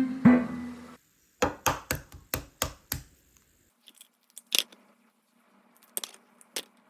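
Guitar music ending about a second in, followed by a quick run of about seven sharp clicks or knocks and then a few scattered ones.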